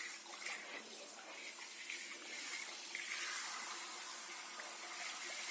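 Water running steadily into a bathtub as a dog is washed, an even hiss of spray and splashing.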